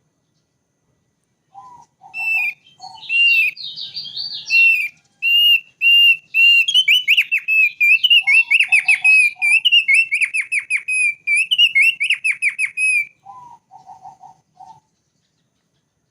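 Thick-billed white-eye (opior paruh tebal) singing one long song: a run of loud, clear whistled notes that breaks into fast rattling trills in the middle, opening and closing with a few short, lower notes. The song begins about a second and a half in and stops shortly before the end.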